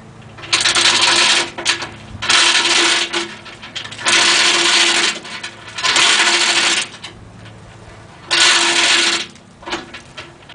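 Hand chain hoist being worked, its hand chain running over the wheel with a clattering ratchet rattle in about five bursts of roughly a second each, one per pull, plus a short one near the end, as it lifts a heavy lathe.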